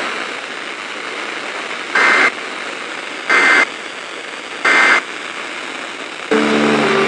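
Emergency Alert System end-of-message data bursts over radio static: three short two-tone digital screeches about a second apart, the closing code of the weather alert broadcast. Near the end a low steady buzz starts.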